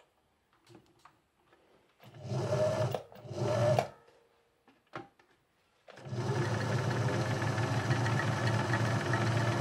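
Pickling electric sewing machine's motor running with the needle disengaged, driving the bobbin winder to fill a bobbin: two short runs about two seconds in, then a steady run from about six seconds on.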